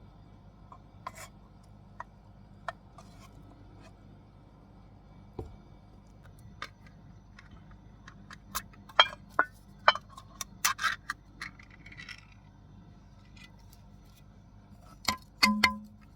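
Scattered clicks, knocks and light clinks of small hard objects being handled and set down. They are sparse at first, come thick and fast a little past the middle, and end with two louder knocks near the end, the last with a brief ring.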